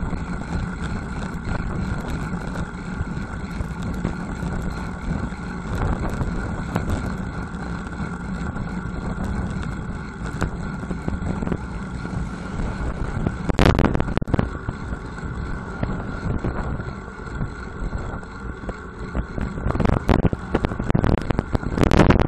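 Wind buffeting the microphone of a bicycle-mounted bullet camera while riding a road bike at speed, over a steady rumble of tyres on asphalt. The rush swells louder about fourteen seconds in and again near the end.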